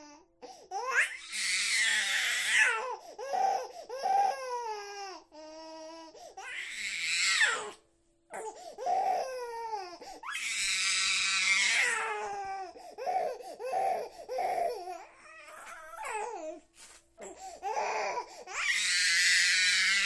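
An infant crying hard: long, loud wails alternate with short, choppy sobs, each stretch broken by a brief gasp for breath.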